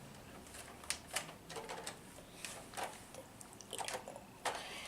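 Faint scattered clicks and light knocks from a plastic toy blaster being handled.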